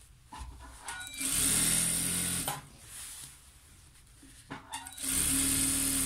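Jack industrial sewing machine stitching a curtain seam in two short runs of about a second each, one starting about a second in and another near the end. Fabric rustles between the runs as it is repositioned under the needle.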